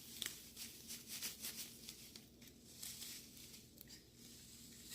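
Faint scattered ticks and rustling as crunchy slime beads are tipped into the glue mixture, thinning out toward the end.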